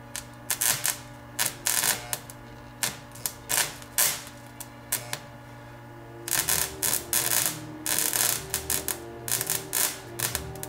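High-voltage arcing between the two leads of a microwave oven transformer: irregular sharp crackles and snaps over a steady low transformer hum, turning into a denser, buzzing crackle from about six seconds in.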